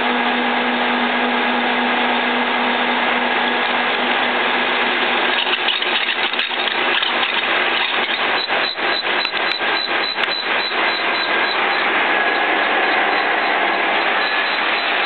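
A 2L614 horizontal boring machine running under load, its spindle driving a 25 mm HSS drill bit through steel: a steady machine and cutting noise. From about five to eleven seconds in, a regular pulsing rattle at about three beats a second runs through it.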